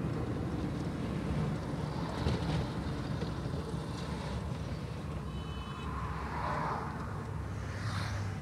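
Steady road and engine rumble from inside a moving car's cabin, with some wind noise.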